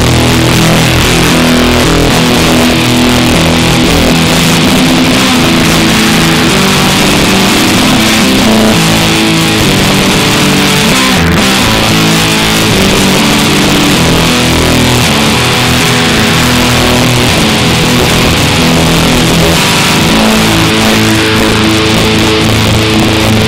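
Electric guitar played through a Line 6 Spider IV 15 amp: a loud, dense wash of noisy, sustained notes that shift in pitch every second or two without a break.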